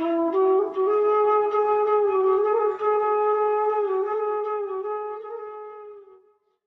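Flute music: a slow melody of long, held notes with a slight waver, fading out near the end.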